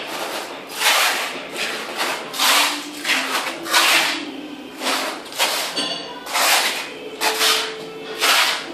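Steel trowel scraping and combing cement tile adhesive across a concrete floor in repeated strokes, about one or two a second.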